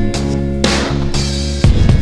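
Background music with sustained pitched notes and a steady beat, with a strong crash-like hit about two-thirds of a second in and another near the end.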